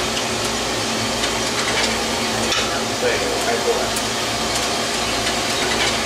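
Feima Pro 1K drum coffee roaster running with a pound of beans tumbling in the drum: a steady rushing whir over a low hum, with scattered sharp clicks.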